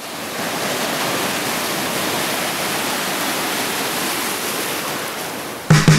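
Steady rush of ocean surf that fades in at the start. Near the end the band comes in abruptly with drums, bass and guitar.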